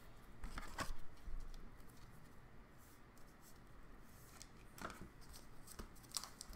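Faint handling of a trading card in a clear plastic sleeve: soft rustling with a few light plastic clicks and taps.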